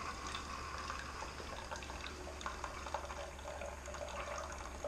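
Keurig single-serve coffee maker brewing: water gurgling and dripping with scattered small ticks over a steady low hum.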